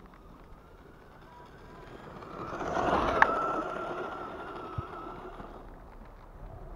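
Electric RC truck passing close by at speed on snow: the high motor whine and the hiss of tyres and spraying snow swell up, peak with a sharp click, then fade away.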